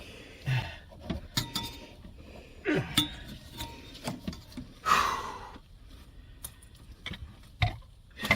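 Scattered light clinks and knocks of small hard objects being handled, with a louder rustling swish about five seconds in.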